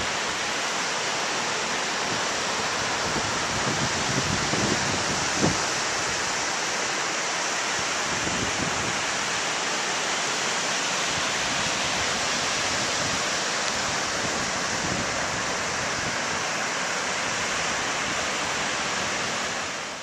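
Ocean surf breaking and washing up the beach, a steady, even rush of water. Wind buffets the microphone in low gusts during the first few seconds, and the sound fades out at the very end.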